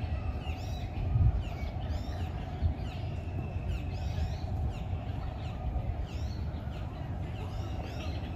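Birds chirping and calling over and over, in quick falling chirps with a few longer whistled notes, over a low steady background rumble.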